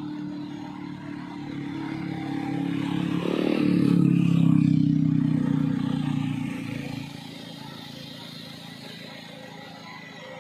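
A car and a motorcycle passing close by on a road, their engine sound swelling to a peak about halfway through and fading off after.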